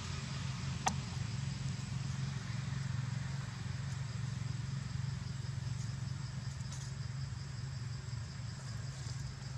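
Steady low rumble of outdoor background noise with a faint, high, pulsing insect trill over it, and a single sharp click about a second in.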